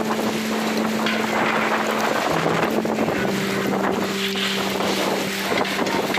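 Strong dust-storm (haboob) wind buffeting the microphone, a dense rushing noise that surges and eases, with a low steady tone underneath that shifts pitch a couple of times.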